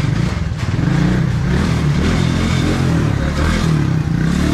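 Small motorcycle engine running at low speed, its pitch shifting up and down as the throttle is eased on and off.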